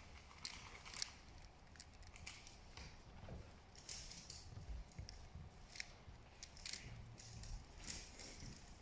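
Faint, irregular plastic clicks, about one or two a second, from a 3x3 speedcube being turned.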